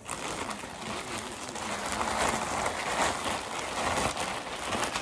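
A plastic mailing bag being crumpled and rustled close to the microphone: a dense, crackling rustle.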